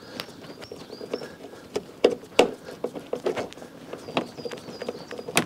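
Hand screwdriver driving a screw into a plastic door-sill trim panel: a run of irregular small clicks and ticks, with a few sharper clicks about two seconds in and at the end.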